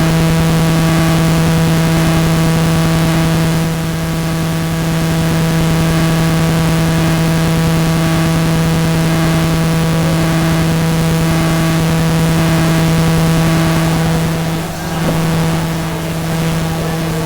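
Loud, steady electrical buzz: mains hum with a stack of overtones that never changes pitch, over a hiss, filling the audio track.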